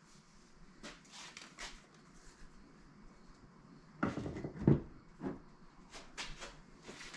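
Scattered light clicks and rustles of hands working in a car's engine bay. About four seconds in comes a short clatter ending in a sharp knock as a hand tool is set down on the car.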